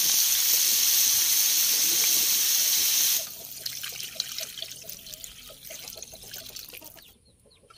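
Small shellfish sizzling hard in a hot wok; about three seconds in, the sizzle cuts off suddenly as a milky liquid is poured in, leaving faint crackling and bubbling.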